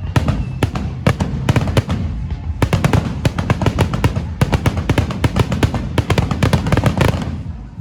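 Fireworks crackling and banging in rapid, dense volleys over loud background music, stopping about 7 seconds in.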